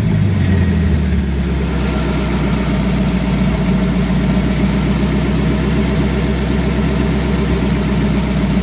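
Fuel-injected Buick Fireball Dynaflash straight-eight engine, bored and stroked to 367 cubic inches. Its revs fall back from a blip in the first second, then it idles steadily.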